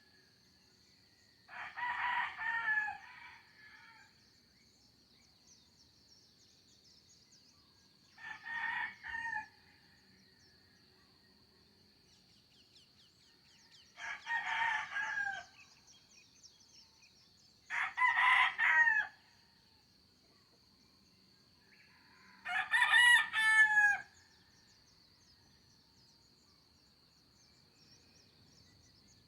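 Roosters crowing five times, each crow lasting about a second and a half, spaced several seconds apart, with the last crow the loudest.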